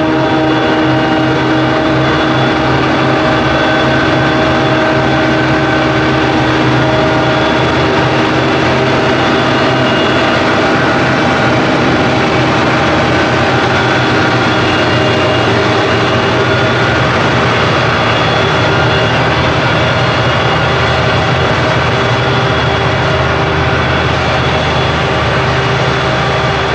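Heavy farm machinery running steadily at working load during a maize harvest: a loud, even engine drone with several steady whining tones.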